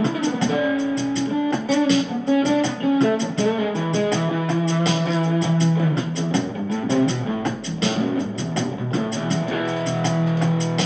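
Instrumental music led by guitar, with a held bass line and a steady beat of percussion clicks.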